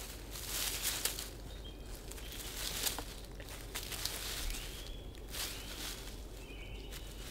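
Intermittent rustling in leaf litter or undergrowth, coming in swishes every second or two, with a few faint short high chirps.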